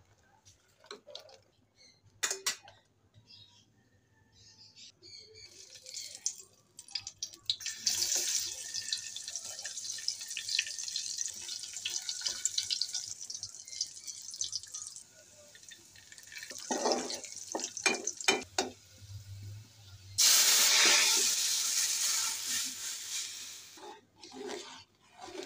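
Sliced onions, dried red chillies, whole cumin and a bay leaf sizzling in hot oil in an aluminium pot, a steady hiss. A few short knocks of a spoon against the pot come after it, then a louder stretch of hissing lasting about four seconds.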